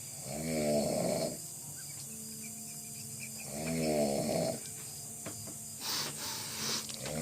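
A sleeping man snoring: pitched snores about a second long, one near the start and one about three and a half seconds later, with a third starting at the very end. A breathy hiss comes between the second and third.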